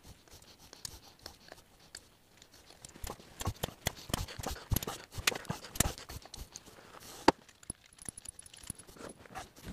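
Irregular metallic clicks and clinks of a hand tool and loose bolts on a Suzuki GSX-R 750 cylinder head as the camshaft carrier bolts are undone and taken out. They come thickest in the middle, with one sharper click about seven seconds in.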